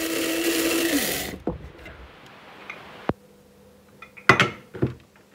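Electric blade coffee grinder running as it grinds raw rice into flour; its motor winds down and stops about a second in. A few knocks follow as the grinder's lid and cup are handled, the loudest about four seconds in.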